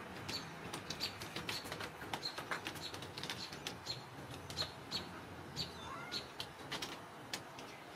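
Small birds chirping in short, repeated notes, with scattered light clicks and taps among them.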